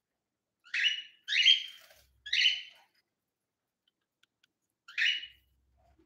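Indian ringneck parakeet giving four short, loud calls: three in quick succession in the first three seconds, then one more near the end.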